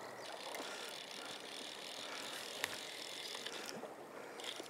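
Fly reel's ratcheting drag buzzing steadily as a hooked Atlantic salmon pulls line off it.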